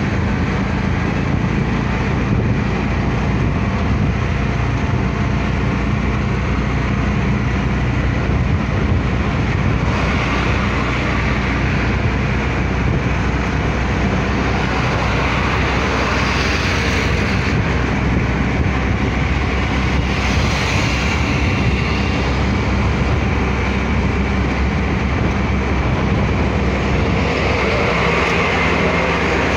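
Bajaj Compact 4S auto-rickshaw's four-stroke single-cylinder engine running steadily at cruising speed, heard from inside the open cabin with road and wind noise. Near the end a bus passes close alongside.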